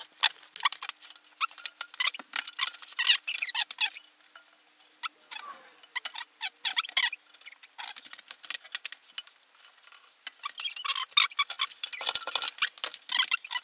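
Dense, light scratching and clicking of wooden frame bars being handled and shifted against the framing vise, busy at first, sparse in the middle, then busy again near the end.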